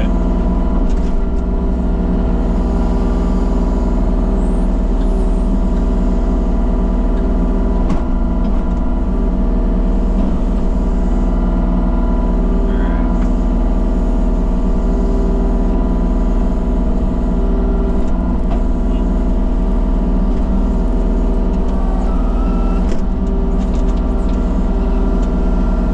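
An engine running steadily at an even, unchanging speed.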